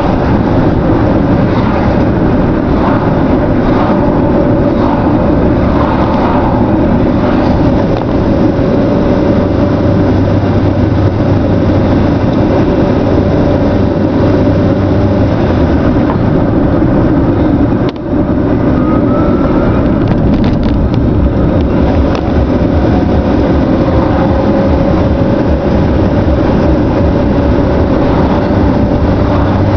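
Engine-swapped first-generation Renault Clio driving at a steady pace, its engine and road noise heard loud from inside the cabin as a continuous drone.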